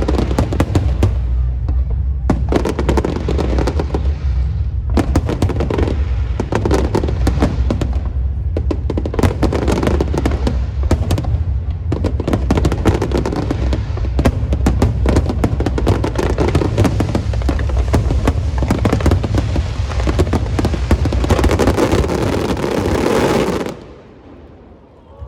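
Fireworks and firecrackers going off in a dense, continuous crackle of rapid bangs, which stops abruptly about a second and a half before the end.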